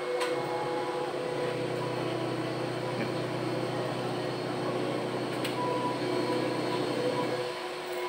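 A steady machine hum with several constant tones. A deeper motor drone joins it just after the start and cuts off shortly before the end.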